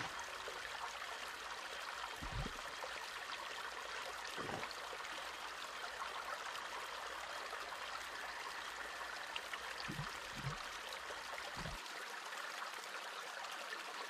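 A steady, even outdoor hiss like trickling water, with a few soft low thumps scattered through it.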